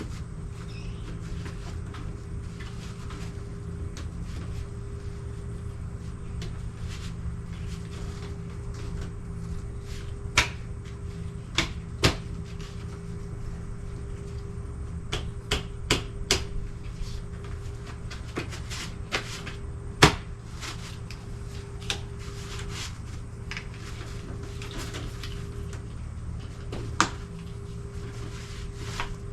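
Scattered sharp knocks and clunks, about eight of them, the loudest about two-thirds of the way through, over a steady low hum: handling and fitting of mower parts and packaging.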